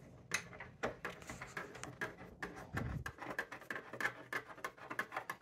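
Faint handling noise: a run of small clicks and rubs as a part is fitted by hand into the monitor's mounting bracket, with a dull low bump near the middle.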